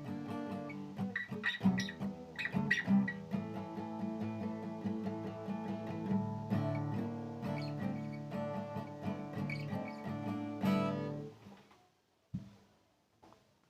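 Acoustic guitar strummed through the song's closing chords. A last chord rings out and dies away about eleven seconds in, then a single short knock follows.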